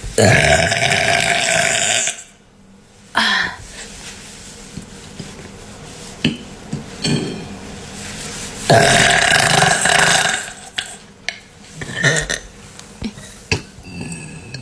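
A woman burping loudly: a long burp of about two seconds at the start, a short one about three seconds in, and another long one of about a second and a half about nine seconds in.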